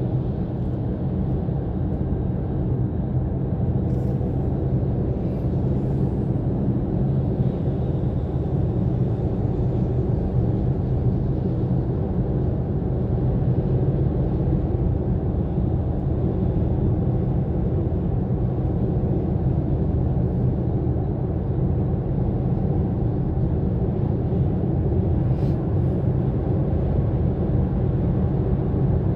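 Steady low rumble of tyre and engine noise inside a car cruising at highway speed.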